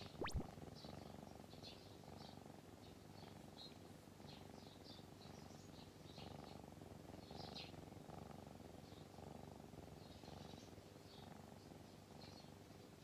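Tabby-and-white kitten purring steadily and faintly while being stroked, close to the microphone. A brief sharp sweeping tone rises just after the start, with faint high chirps scattered throughout.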